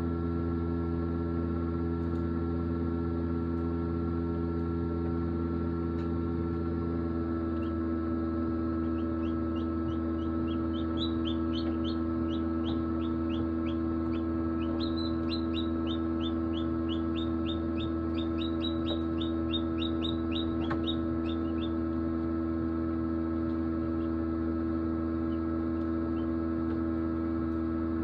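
Steady hum of an egg incubator's fan and heater. From about 9 to 22 seconds in, a hatchling peeps rapidly and high-pitched, about three peeps a second.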